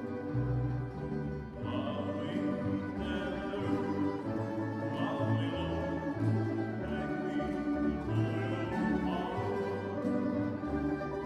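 Tamburica orchestra playing, plucked tamburicas over double bass, with a male singer's voice rising above the ensemble at several points.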